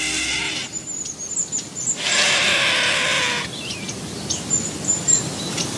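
Small birds chirping in short, high notes through a steady outdoor hiss, with a louder swell of hissing noise lasting about a second and a half near the middle. The last held tones of background music fade out in the first moment.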